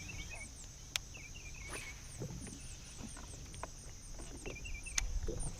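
Outdoor ambience of a steady insect drone with small birds chirping and warbling over it, and two sharp clicks, one about a second in and one near the end.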